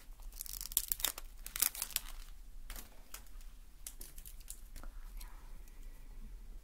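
Close-up scratchy handling noise at a binaural microphone. It is dense for about the first two seconds, then thins to scattered clicks over a low steady hum.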